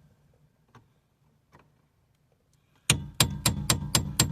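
Hammer blows on a chisel set against the steering column's anti-theft locking bolt, knocking it round to loosen it. After a near-silent pause with a couple of faint clicks, a quick run of about seven sharp metallic strikes begins about three seconds in, roughly five a second.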